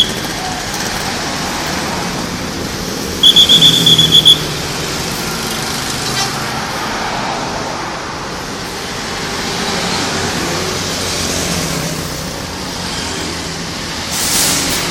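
Buses running and passing in traffic, with a shrill, rapidly pulsing whistle-like tone lasting about a second, about three seconds in. A short hiss comes near the end.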